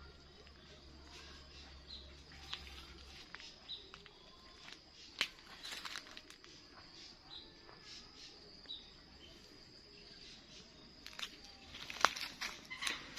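Outdoor ambience of small birds chirping in short, high notes about once a second over a steady high-pitched whine, with scattered sharp clicks and crackles that cluster louder near the end.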